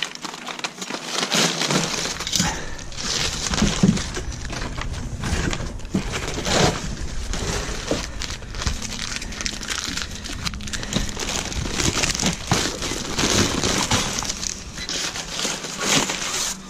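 Honeycomb kraft-paper packing wrap and packing tape being torn and pulled off a board by hand: a continuous run of paper crinkling and tearing with many small rips and crackles.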